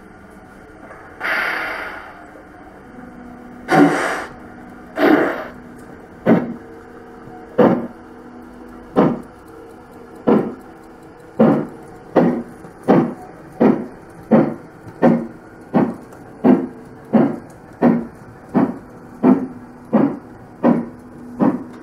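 Sound module of a Märklin BR 38 Gauge 1 model steam locomotive playing steam-exhaust chuffs as the train pulls away. After a short burst of noise about a second in, the chuffs start at about one every 1.3 seconds and speed up to about three every two seconds as the train gathers speed, with a faint steady hum beneath.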